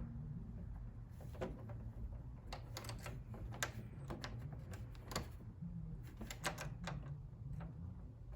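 Irregular small clicks and scrapes of a VGA cable's metal connector being handled and its thumbscrews turned, over a low steady hum.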